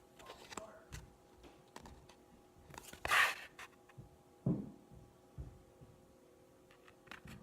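Baseball trading cards being handled: faint clicks and shuffling, with a brief rustle about three seconds in and a soft thump a second or so later.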